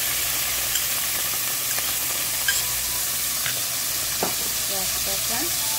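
Onion paste sizzling and frying in hot oil in a metal pot, with a few light clicks of a metal spoon stirring it against the pot.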